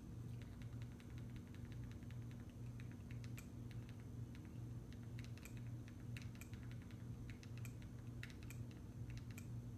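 Fire TV remote buttons clicking again and again as the navigation ring and select button are pressed to pick letters on the on-screen keyboard, at an uneven pace, over a low steady hum.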